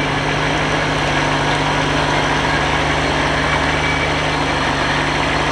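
Second-generation Mitsubishi Pajero's engine idling steadily, an even low hum with no revving.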